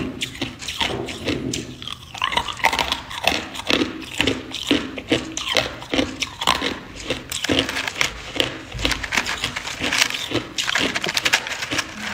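Hard clear ice being bitten and chewed up close: a fast, irregular run of sharp crunches and cracks as the chunks break between the teeth.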